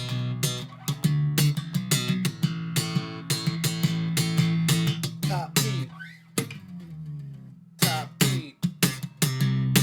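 Background music: plucked guitar with bass, picked notes over a steady low line, with a few sliding notes.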